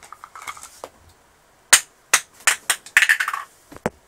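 Hard plastic toy stroller parts clacking and knocking together as they are handled: a string of sharp clicks, the loudest a bit under two seconds in, with a quick rattling clatter about three seconds in.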